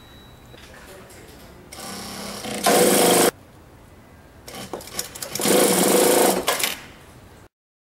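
Brother S-7000DD direct-drive lockstitch industrial sewing machine stitching through heavy layered fabric in two runs, a short one about two seconds in and a longer one from about four and a half seconds. The second run is with the hammer operation on: intermittent needle impacts raise the penetration force against the resistance of the thick fabric. The sound cuts off suddenly near the end.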